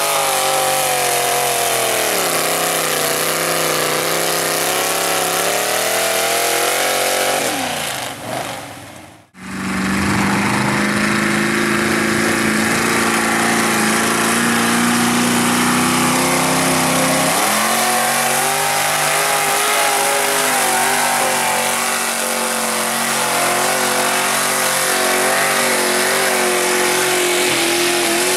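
Engines of lifted mud-bog pickups on tractor tires revving hard through a mud pit, their pitch wavering, then falling. After a brief break about nine seconds in, another truck's engine is held at high, steady revs, its pitch shifting once partway through.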